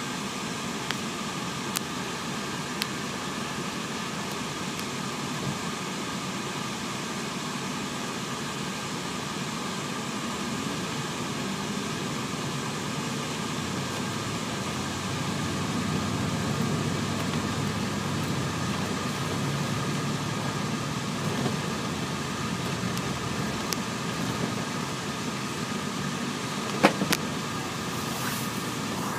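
Steady engine and road noise heard inside a moving 2005 MCI D4500CL coach, with an even hiss over it, growing a little louder about halfway through. A sharp click sounds near the end.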